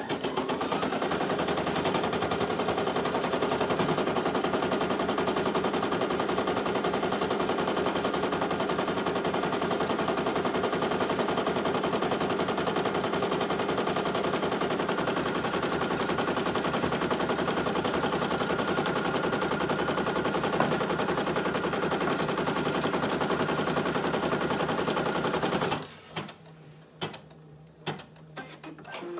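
Brother PE800 single-needle embroidery machine stitching at speed, a fast, even needle rattle that speeds up during the first second. It stops abruptly about 26 seconds in, followed by a few scattered clicks.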